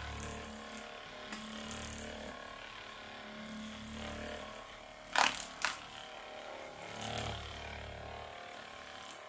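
Percussive massage gun running on the back to warm the skin before cupping, its low motor buzz coming and going in stretches. Two sharp clicks a little after five seconds in are the loudest sounds.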